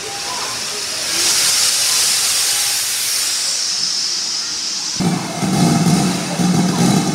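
Steam hissing steadily from GWR 5600 class tank locomotive 5643, growing louder about a second in. About five seconds in it breaks off sharply and a low steady hum takes over.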